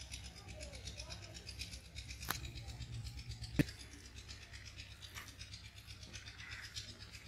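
Hand squishing and rubbing raw mutton pieces in a yogurt and spice marinade in a clay bowl, a faint, fast scratchy squelching. Two short sharp clicks come about two and three and a half seconds in.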